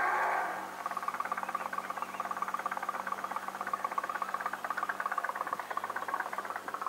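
Small live-steam engine of a radio-controlled model tug, chuffing in a rapid, even beat of roughly ten puffs a second. It comes in after a steady hiss stops about half a second in.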